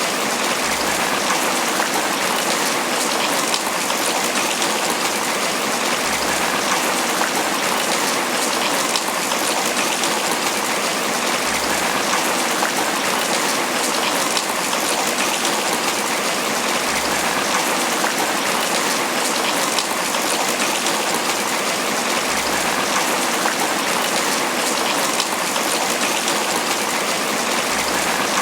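Tropical rain falling steadily on banana leaves, an even, unbroken patter with no let-up.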